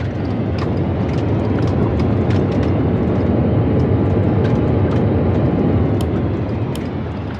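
Jet engines of an Airbus A320 airliner, a loud low rumble with a faint whine that swells over the first couple of seconds, holds, and fades near the end as the aircraft goes by.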